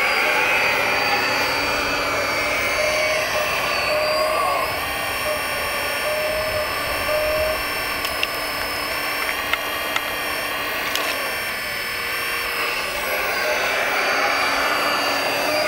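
Electric-driven hydraulic pump of a Kabolite K350 RC excavator whining steadily, its pitch shifting up and down as the boom and bucket move. There are a few sharp ticks partway through.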